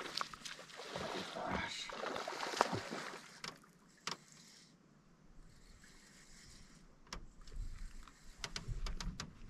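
Water splashing and sloshing for a few seconds, followed by a few scattered knocks and clicks.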